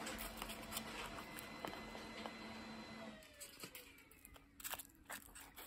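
A small motor humming steadily, then winding down and stopping about three seconds in. A few light clicks and taps follow.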